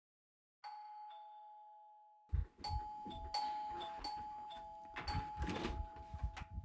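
Two-note doorbell chime: one ding-dong that rings and fades, then from about two seconds in the bell is rung over and over in quick succession, the notes piling on each other, with dull thuds among them.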